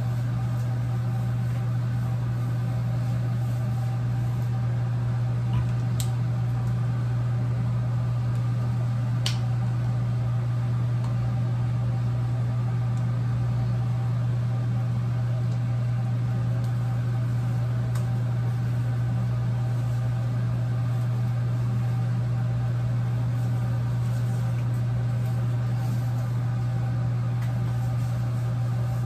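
Bathroom exhaust fan running with a steady low hum, with a few faint clicks now and then.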